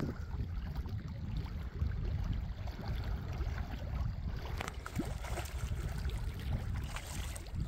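Wind rumbling on the microphone over water lapping at a rocky shore, with a few small splashes in the second half as a hooked perch thrashes at the surface.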